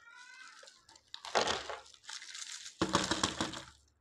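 Lumps of calcium carbide rattling and clattering out of a plastic jar onto a table, in two bursts, the second louder. Near the start, a faint plastic squeak as the jar's cap is twisted off.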